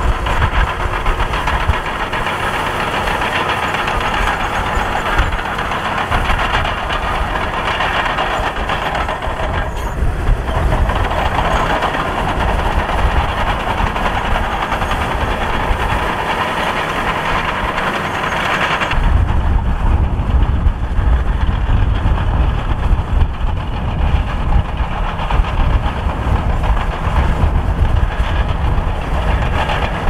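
Liugong B160C crawler bulldozer working, its diesel engine running steadily under load with the clank of its steel tracks. About two-thirds of the way through, the sound changes abruptly to a deeper, heavier engine sound with less hiss on top.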